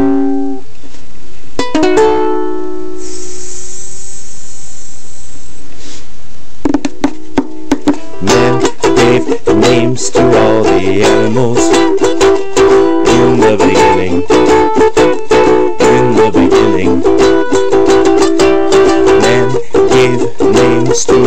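Lanikai LU-21P pineapple soprano ukulele strummed in an instrumental break. A few strums open it, a chord rings out about two seconds in, and a steady hiss follows for about three seconds. Steady rhythmic strumming of changing chords then resumes about seven seconds in.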